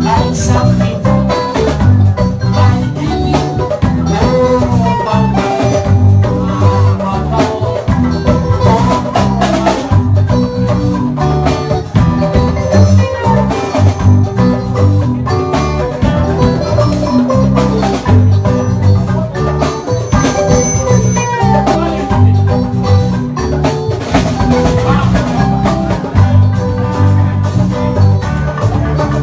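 Live band playing an instrumental groove: a steelpan plays a melody of quick notes over bass guitar, guitars and a drum kit.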